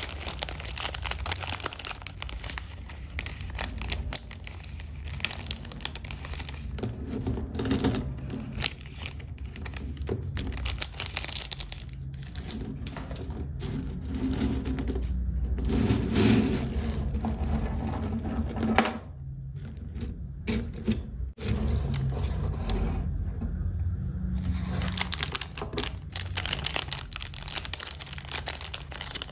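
Plastic and foil snack wrappers crinkling and tearing as they are pulled open by hand, with light clicks of snacks being laid into a bowl.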